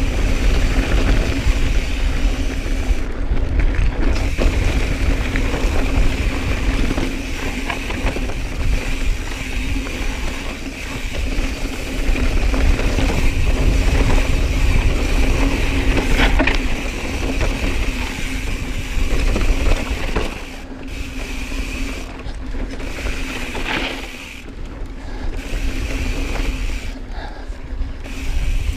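Mountain bike freehub buzzing steadily while coasting, cutting out briefly several times in the second half, over a low rumble of wind and tyres on the dirt trail.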